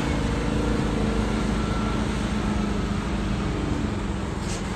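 Diesel engine of a Western Star semi truck running steadily as the tractor-trailer drives slowly past, a low, even drone.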